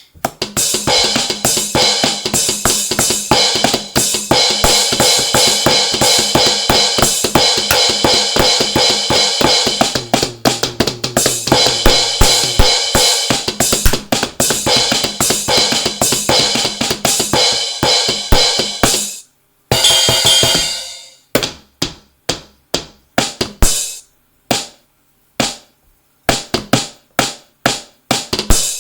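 Electronic drum pad played as a drum kit: a fast, busy run of drum and cymbal sounds for about nineteen seconds, then a brief stop, one longer ringing hit, and single hits spaced about a beat apart.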